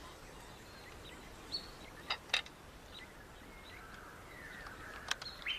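Faint outdoor ambience with a few short bird chirps and whistles and several sharp clicks, around two seconds in and again near the end.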